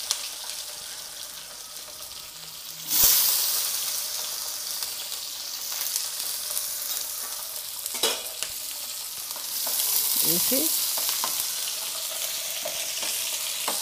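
Chopped onions sizzling in hot oil in a frying pan with a tempering of dried red chillies, garlic and spices, with a spatula stirring them. The sizzle jumps louder about three seconds in, and there is a single sharp click about eight seconds in.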